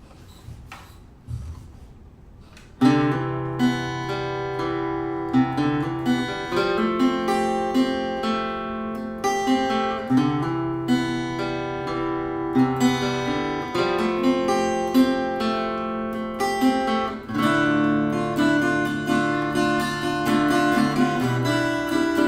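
Seagull Entourage Rustic Grand, a compact acoustic guitar with a solid cedar top and wild cherry back and sides, played in chords with ringing bass notes. The playing starts about three seconds in after a faint knock.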